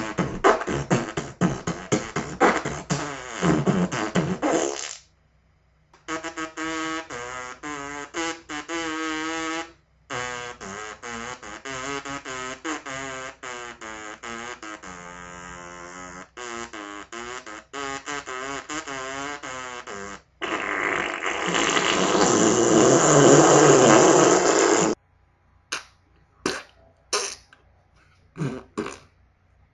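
A string of fart sounds. It opens with rapid sputtering, then comes a run of long, pitched, wavering ones, then a loud raspy blast, and it ends with several short separate puffs.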